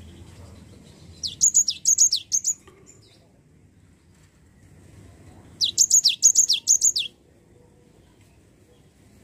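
Cinereous tit (gelatik batu) singing. It gives two quick runs of high, clear notes, each note sliding down in pitch, one about a second in and a longer one about halfway through.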